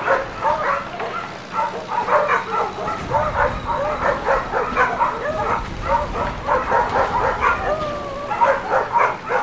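A pack of dogs barking together, many short overlapping barks and yelps coming several a second without a break.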